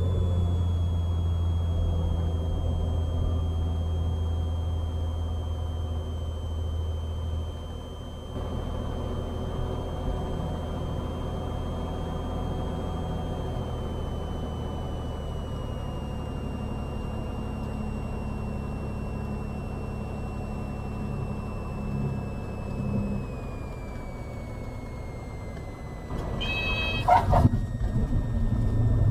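Cessna 182 Skylane's engine and propeller heard from the cabin on final approach, a steady drone whose pitch slowly falls as power is brought back, with the low drone dropping about eight seconds in. Near the end a brief stall-warning horn sounds as the plane flares for a smooth touchdown.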